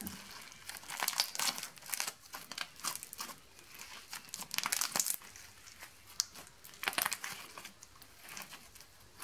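Clear slime packed with craft pom-poms being stretched and squeezed by hand: faint, irregular sticky crackling and clicking in short clusters.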